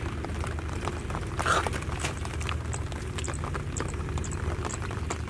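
Hands splashing and squelching in a shallow muddy trench of water while catching a small fish, with scattered short clicks and a louder splash about one and a half seconds in, over a steady low hum.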